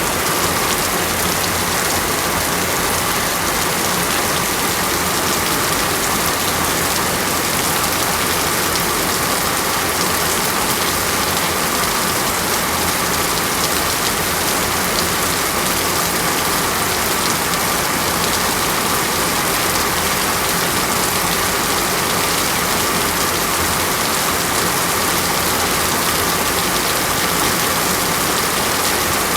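Heavy rain falling steadily, a dense even hiss of drops striking a surface.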